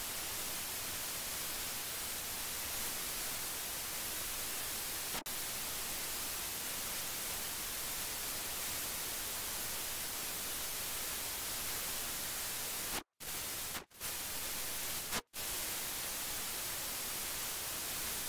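Steady white-noise static hiss, like a detuned TV or worn VHS tape. It cuts out for an instant about five seconds in and three more times a few seconds before the end.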